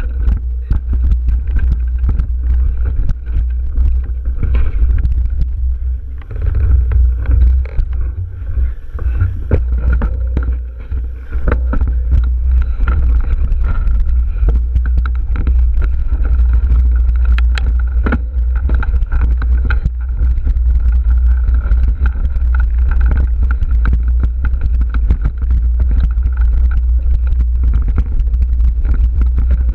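Wind buffeting on a mountain bike's action camera, with the bike rattling and knocking as its tyres run over a rocky dirt singletrack.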